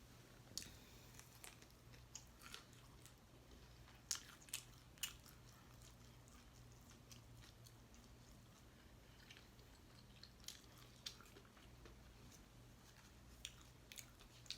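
A person eating a meal of air-fried chicken, macaroni and cabbage: quiet chewing and biting with a dozen or so short, sharp crunches and mouth clicks at irregular moments, the clearest cluster about four to five seconds in. A faint steady low hum runs underneath.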